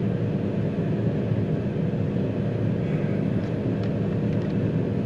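A vehicle engine running steadily: a continuous low drone with an even hum.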